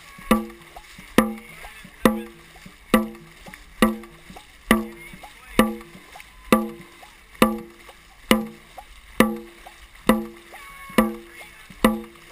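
Dragon boat drum struck in a steady beat, a little over one beat a second, each beat a short ringing thump followed by a lighter knock, pacing the paddlers' strokes. Water rushes and splashes along the hull underneath.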